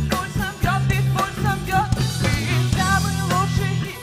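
Live band music: a woman singing a melody over drum kit, accordion, balalaika and bass, on a steady beat.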